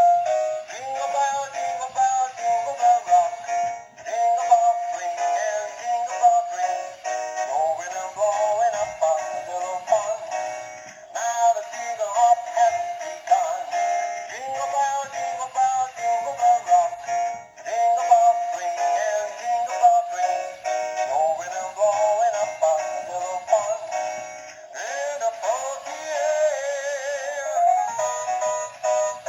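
Battery-powered animated reindeer toy playing a Christmas song with singing through its small speaker. The sound is thin, with almost no bass, and there are brief breaks between phrases.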